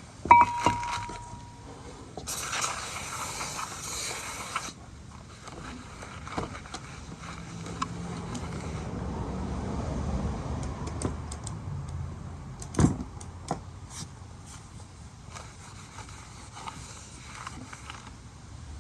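Aerosol brake cleaner sprayed onto a new brake rotor to strip its anti-rust grease, one steady hiss of about two and a half seconds starting about two seconds in. Scattered clicks and knocks of parts being handled, with the loudest knocks just after the start and about thirteen seconds in.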